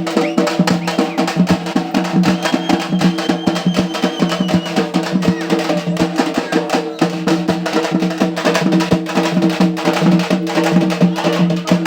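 Lively music of fast, dense drumming over a steady held drone note.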